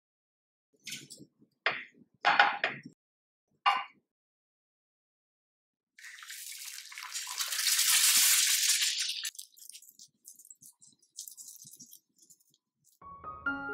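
A wooden butter knife scraping butter across a thick slice of toast in a few short strokes. About halfway through, an egg drops into a hot frying pan and sizzles, the hiss swelling and dying away over about three seconds, followed by light spitting and crackling.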